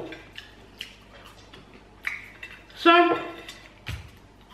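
Eating at a table with the fingers: scattered light clicks and taps from picking at a plate of fried chicken and fries. A short hummed vocal sound comes about three seconds in and is the loudest thing, followed by a low thump.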